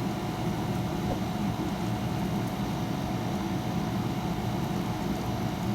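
Steady low background hum with a faint constant tone, unchanging throughout.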